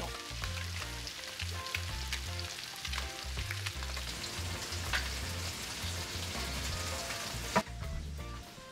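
Snapper fillets frying in butter in a stainless pan: a steady sizzle that cuts off sharply near the end. Soft background music with a stepping bass line plays underneath.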